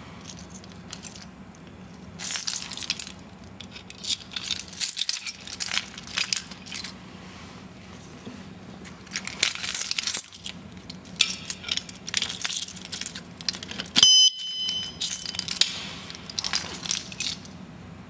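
Metal clinking and rattling in several bursts as an alarm U-lock is handled, with one short, high electronic beep from its alarm about fourteen seconds in.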